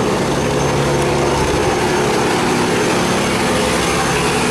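Cargo barge's engine running hard at close range, a steady low drone over the rush of churning water along the hull. The engine note shifts about a second and a half in.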